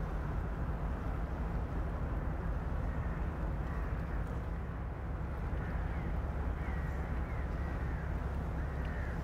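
Crows cawing several times, starting about four seconds in, over a steady low rumble from a passing inland tanker barge and the open riverside.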